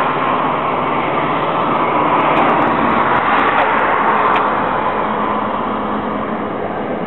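Steady rumble of traffic, with no single sound standing out and a slight drop in level in the last couple of seconds.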